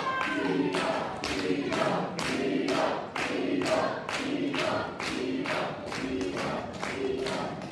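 Wrestling crowd chanting in unison and clapping along in a steady rhythm, about two claps a second.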